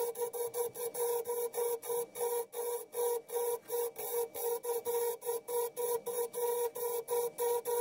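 Wood lathe running while a hand-held turning tool cuts a spinning segmented bubinga and ash goblet blank, a steady hissing cut with a hum underneath that pulses evenly about five times a second.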